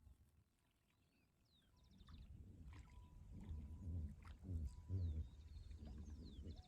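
Faint outdoor ambience: birds calling in short chirps over a low rumble, starting about two seconds in after near silence.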